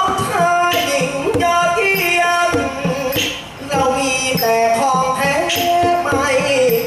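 Likay singing: a voice drawing out long, wavering notes over instrumental backing, with a short break about halfway through.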